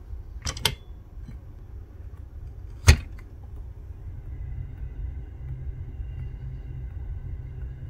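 Metal phone opener-and-clamp fixture being handled. A quick double click comes about half a second in, then a louder single sharp clack near three seconds, over a steady low rumble.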